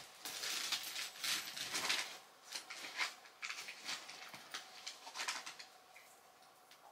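Rustling and light clattering of small items being handled, busiest in the first two seconds and then scattered clicks, over a faint steady hum.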